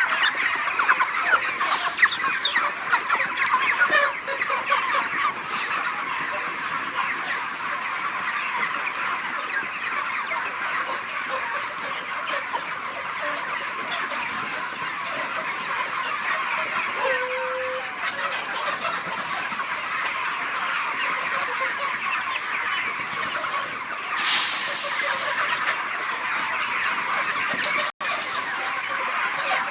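A flock of desi chickens calling and clucking continuously, many birds overlapping in a dense, steady chatter.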